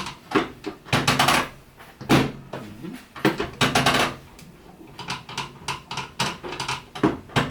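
A chiropractic drop table and the patient's body being worked in a sacrum adjustment: a string of clacks, knocks and short rustles, about a dozen, irregularly spaced.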